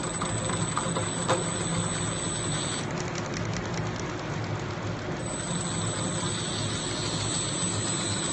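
Small electric motor running steadily with an even hum, spinning the inner ring of a homemade cardboard-and-craft-stick rotating-ring model whose outer ring turns the opposite way.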